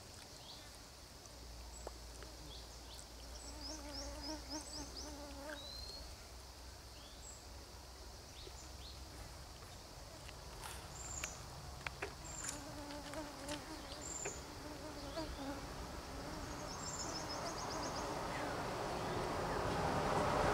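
Faint roadside jungle ambience: insects buzzing and short high chirps, over a low hum. Near the end a vehicle's noise swells as it approaches.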